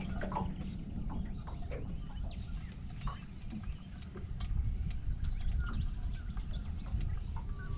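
Wind rumbling on the microphone and water slapping against a small aluminium boat's hull, with scattered light clicks and short high chirps throughout.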